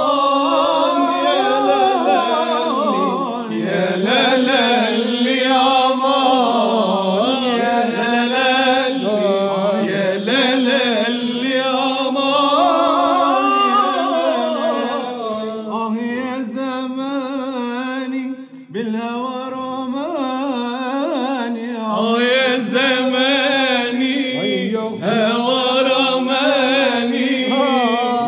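Men singing unaccompanied in Aleppine tarab style. It is a long, wordless melismatic line with wavering ornaments and drawn-out notes, and the singing breaks off briefly about two-thirds of the way through.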